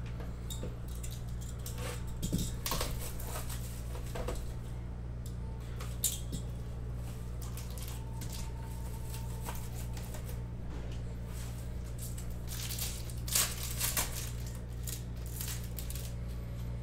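A small cardboard Upper Deck Ultimate Collection hockey card pack being opened and the stiff cards inside handled: scattered clicks, taps and rustles of cardboard and card stock. The loudest is a cluster of sharp rustles about 13 to 14 seconds in. A steady low hum runs underneath.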